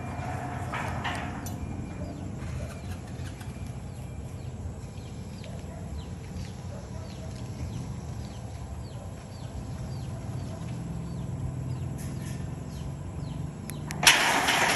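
Electric sliding gate closing under its motor: a steady low hum with a string of short high chirps, about two a second, during the gate's travel. A loud burst of noise starts suddenly near the end.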